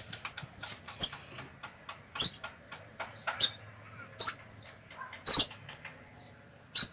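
Handling noise from the wooden plank: a few short, sharp clicks and scrapes, roughly one a second, over a faint low hum.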